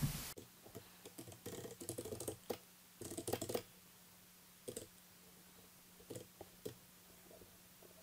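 Computer keyboard typing: a quick run of keystrokes through the first few seconds, then a few scattered single clicks.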